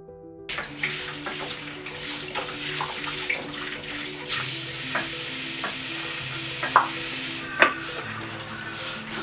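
Tap water running into a sink while dishes are washed, starting about half a second in, with scattered clinks and knocks of pots and utensils, the loudest near the end. Soft music of slow, sustained notes plays under it.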